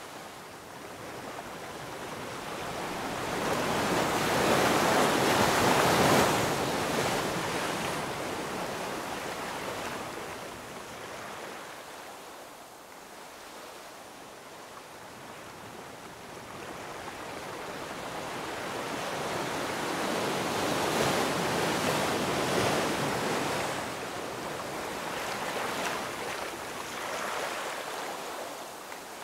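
A rushing, surf-like noise that slowly swells and fades twice, loudest about five seconds in and again past the twenty-second mark.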